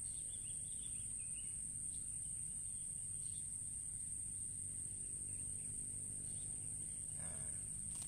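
Insects buzzing in a steady, high-pitched, unbroken drone, over a low rumble, with a few faint chirps in the first couple of seconds.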